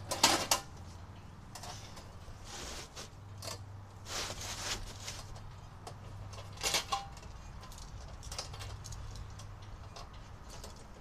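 Scattered knocks, clinks and rustling from hands handling gear around a cardboard-boxed air compressor that is not running. A sharp knock comes just after the start, with louder scraping about four seconds in and again near seven seconds.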